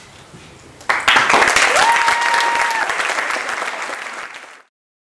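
Audience applauding, breaking out about a second in and stopping suddenly near the end; one voice calls out briefly in the middle, rising in pitch and then holding.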